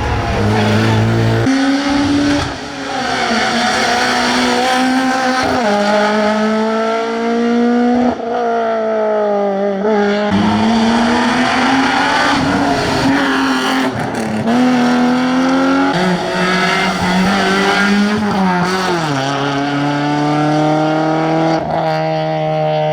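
Classic rally car engine at full effort, its note climbing and then dropping sharply again and again with throttle and gear changes.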